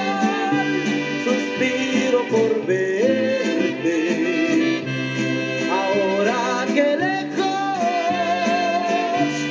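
Mexican banda music playing an instrumental passage with no lyrics sung: horns carry a wavering melody over a stepping bass line and steady percussion strikes.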